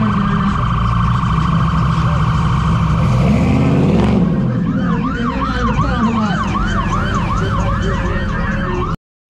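Electronic siren: a fast-warbling steady tone, then from about five seconds in a rising-and-falling sweep repeating about twice a second, over a loud low rumble. It cuts off abruptly near the end.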